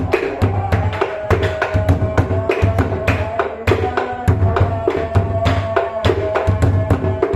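Bedug, the big mosque drum, beaten in a fast rhythm: deep booms about twice a second, thick with quicker sharp strikes on the drum and other percussion, and a held tone running beneath.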